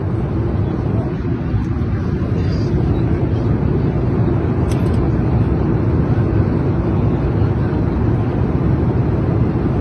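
Steady low drone of a jet airliner's cabin in flight: engine and airflow noise.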